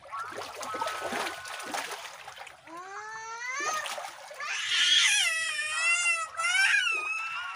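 Splashing in shallow muddy water as large catfish are grabbed by hand. About three seconds in, a long drawn-out animal cry begins, rising in pitch and then wavering up and down until near the end.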